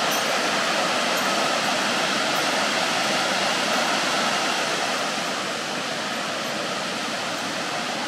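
Steady rushing roar of Ōtaki, a 40 m waterfall, falling water heard close by; it eases slightly about five seconds in.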